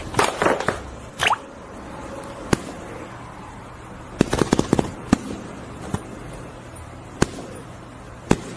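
Irregular sharp clicks and knocks, some coming in quick clusters, over a faint steady hum.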